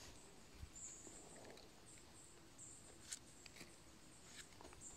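Near silence: quiet forest ambience with a few faint, high bird chirps in the first half and a single light click about three seconds in.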